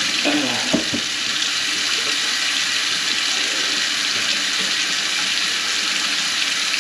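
Kitchen faucet running steadily into a stainless steel sink, the water splashing in the basin and flowing down the drain without backing up. Gloved hands rinse under the stream near the start, with one short knock.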